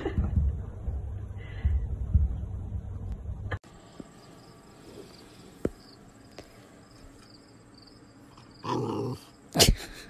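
Two puppies play-fighting, with low, rough growling and scuffling. It cuts off abruptly after about three and a half seconds. Then it is quiet apart from a short sound and a sharp click near the end.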